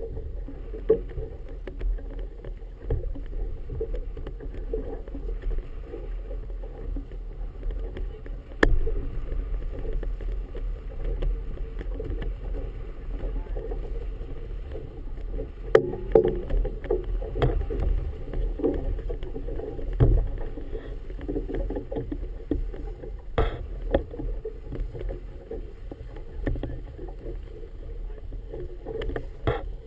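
Choppy harbour water slapping and washing against a small boat's hull, heard muffled, with wind buffeting and a few sharp knocks.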